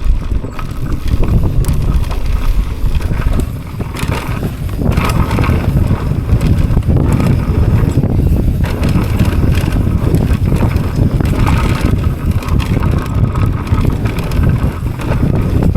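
Mountain bike running fast down a dirt jump trail: tyres rumbling over the ground with rattles and knocks from the bike, and wind buffeting the microphone.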